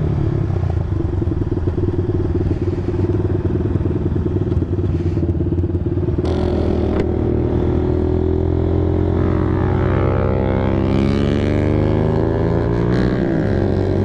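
Honda Sonic 150R's single-cylinder engine running under way. It holds a steady pitch at first, then revs climb for several seconds as the bike accelerates, dipping briefly near the end.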